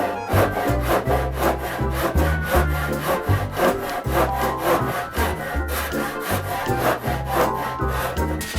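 Hand saw cutting through wood in quick repeated strokes, with background music underneath.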